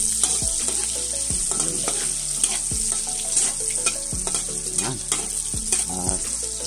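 Chopped garlic and onion sizzling in hot cooking oil in a wok as they are stirred, with a steady high hiss and scattered short strokes: sautéing the aromatics until they brown.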